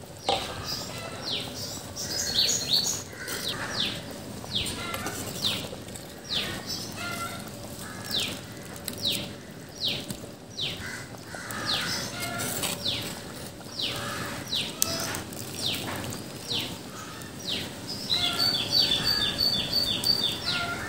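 Birds calling outdoors: short high chirps that slide downward, repeated about once or twice a second. Near the end comes a quick run of high, even notes.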